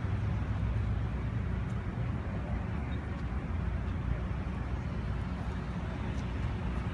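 Steady road traffic noise: an even low rumble with no single passing vehicle standing out.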